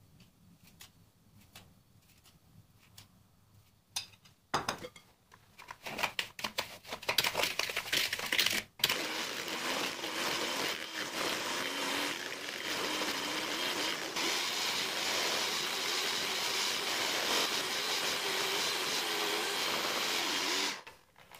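Electric hand mixer whipping egg yolks with sugar in a glass bowl. It starts with irregular clattering about four seconds in, then from about nine seconds the motor runs steadily with the beaters churning the mixture, until it cuts off near the end. The first few seconds hold only faint clicks.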